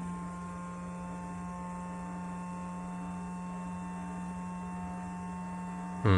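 Steady electrical hum holding several constant tones, with no change or break.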